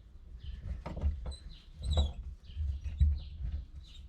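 Irregular light clicks and knocks of metal parts being handled, with a low rumble and many short, high chirps or squeaks.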